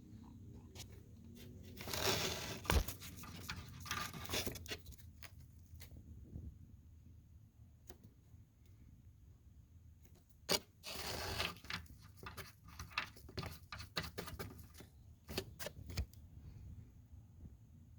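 Close handling noise: rustling and scraping in two spells, with a run of sharp clicks and taps in between.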